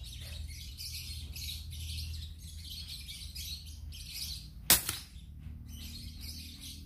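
A GCMAG air rifle with a Lothar Walther polygon barrel fires a single pellet: one sharp shot about two-thirds of the way in, with birds chirping steadily behind it.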